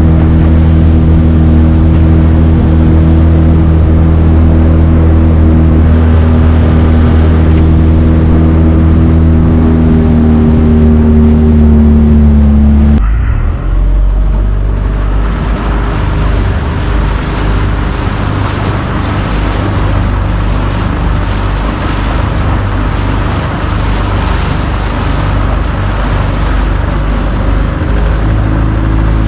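Motorboat engine running steadily with a low hum. About halfway through the sound changes suddenly to a rougher, noisier run of engine with water and wind noise.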